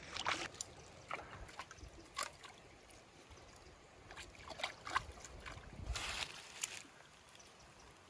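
Shallow creek water trickling over stones, with a series of short splashes and sloshes as hands move through the water.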